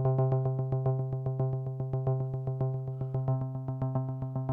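Buchla Music Easel synthesizer playing a steady low note, gated by its pulsar into a fast, even motor rhythm of about eight pulses a second. A negatively attenuated envelope mixed into the control voltage makes the pulses swell and fade.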